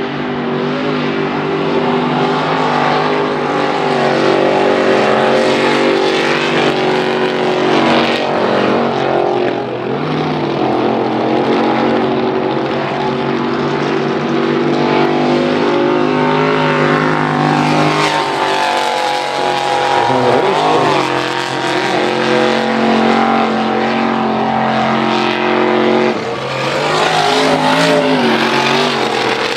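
High-horsepower mud race truck engine running hard at full throttle, its pitch rising and falling as the driver gets on and off the gas, with a brief let-off near the end.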